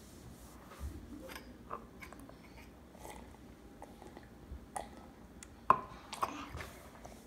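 A toddler chewing cereal and eating from a stainless steel bowl, with scattered small clicks and one sharp louder click about three-quarters of the way through.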